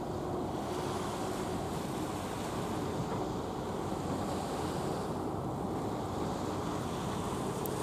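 Steady wind on the microphone over the wash of the sea.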